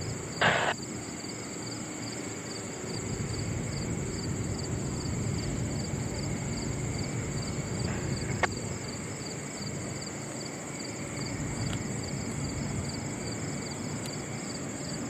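Insects chirping in a steady, evenly pulsed high trill over a low, even rumble from the distant approaching diesel freight train and highway traffic. A single sharp click a little past halfway.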